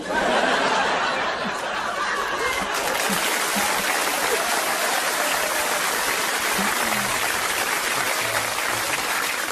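A live audience laughing and applauding in one long, steady wave.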